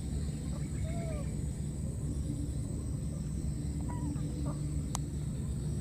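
Outdoor ambience: a steady low rumble, with a few short faint animal calls about one second and four seconds in, and a sharp click about five seconds in.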